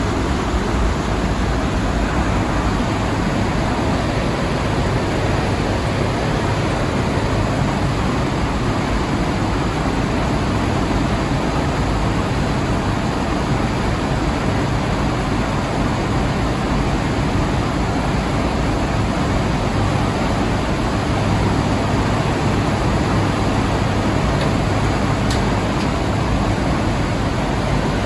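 Loud, steady rush of air and turboprop engine drone inside the cargo hold of an HC-130J flying with its rear ramp open.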